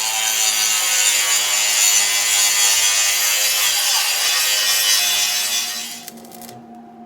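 Angle grinder running and grinding on old steel to get down to clean metal for welding. It stops about six seconds in.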